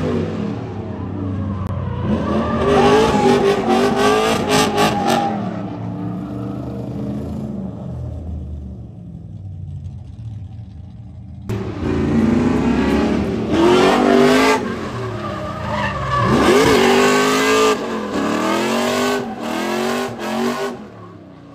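Drift cars sliding on a track: engines revving up and falling back again and again, with tyre squeal. The sound eases off for a few seconds and then cuts back in abruptly, loud, about eleven seconds in.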